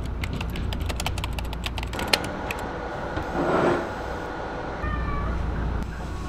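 A cat meowing once, about three and a half seconds in, after a run of light clicks, over a steady low hum.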